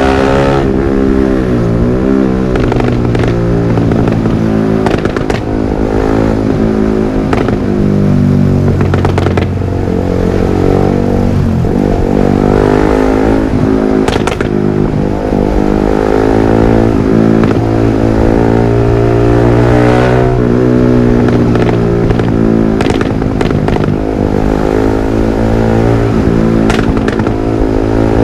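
Yamaha R15 V3's single-cylinder engine running through an aftermarket Villan MP1 exhaust, revs rising and falling. Sharp pops and crackles from the exhaust come at several points, around halfway and again in the last third.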